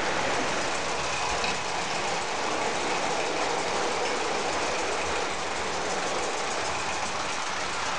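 Vintage tinplate 0 gauge toy trains running on tinplate track: the steady running noise of their wheels on the rails.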